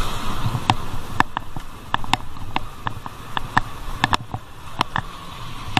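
A bicycle riding over a rough concrete street: sharp, irregular clicks and rattles about three times a second over a low rumble of tyres and wind.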